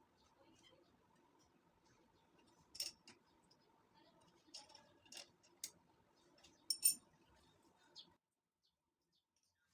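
A few sharp, light clinks and clicks over a faint steady hum, the loudest pair about seven seconds in; everything cuts off abruptly just after eight seconds.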